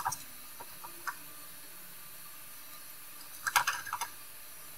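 Small clicks and taps of tools being handled at a microsoldering bench: a few single ticks early, then a louder quick cluster of clicks about three and a half seconds in, over a faint steady hiss.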